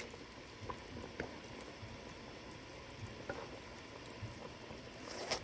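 Braising liquid of oxtail and pig feet boiling in a pot over high heat as the sauce reduces: a faint, steady bubbling with a few small pops.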